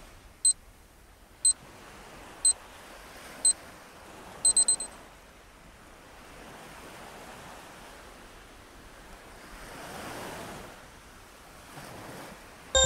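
Workout-timer countdown beeps: a short high beep once a second four times, then a quick triple beep marking the end of the exercise. Behind them a soft ocean-surf ambience that swells and fades, loudest about ten seconds in.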